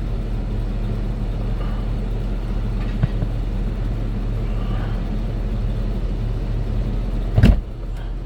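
Steady low hum of the Jeep Grand Cherokee idling with its door open, then the car door slamming shut once near the end, after which the hum is quieter.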